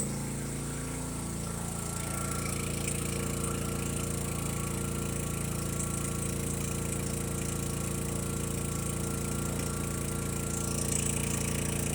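Pulsar G450RN inverter generator running steadily under load from an RV air conditioner, louder inside a metal building. Its engine speed rises slightly a second or two in, then holds.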